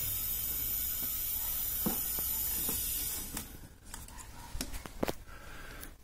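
R134a refrigerant gas hissing steadily as it is let from the cylinder through the gauge manifold into the freezer's sealed system during charging, cutting off a little over three seconds in. A few light clicks follow.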